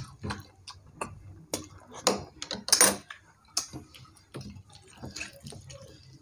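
Eating at a table: irregular wet clicks and smacks of chewing, with light taps of fingers and a spoon on ceramic plates and bowls, a couple of louder clicks about two to three seconds in.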